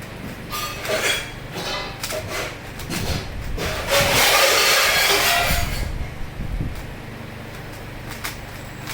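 3x3 Rubik's cube being turned fast in a speed solve: rapid irregular clicking and clacking of the plastic layers. There is a louder, denser stretch of rattling noise about four to six seconds in.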